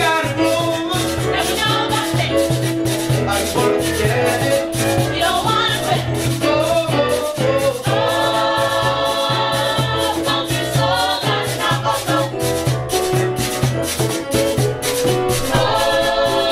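Background music with singing and a steady, quick percussion beat.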